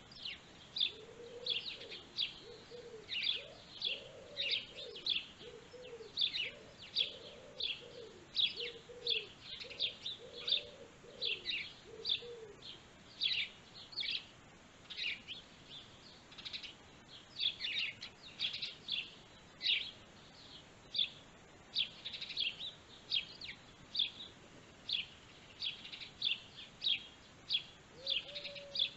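Birds chirping in a steady run of short high chirps, two or three a second. Underneath, a lower call repeats through the first dozen seconds and comes back briefly near the end.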